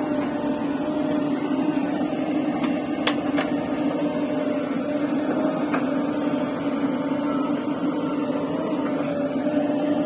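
JCB 3DX backhoe loader's diesel engine running steadily under load while the backhoe arm digs and lifts a bucket of soil. A few short sharp knocks come about three seconds in and again near six seconds.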